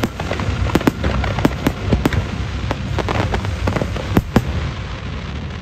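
Fireworks going off: a string of sharp cracks and pops over a constant low rumble, the loudest pair of bangs a little after four seconds in, then the display dies down near the end.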